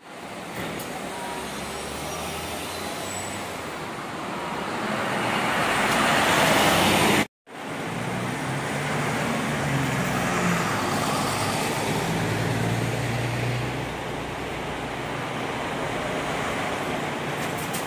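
Buses driving past on a city street with traffic noise. The first several seconds grow steadily louder as a bus draws close, then cut off abruptly. A second bus's engine hum then rises and fades as it pulls past.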